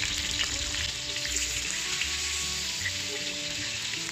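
Whole threadfin fish pan-frying in oil in a wok over low heat: a steady sizzle with scattered small pops.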